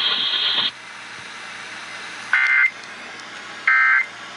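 Emergency Alert System end-of-message data bursts on the radio: two short, shrill, buzzy digital tone bursts about a second and a half apart, closing the severe thunderstorm warning, over faint broadcast hiss.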